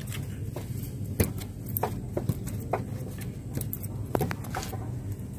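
Plastic drain cell tiles being handled and interlocked: a string of irregular sharp clicks and knocks, the sharpest about a second in, over a steady low hum.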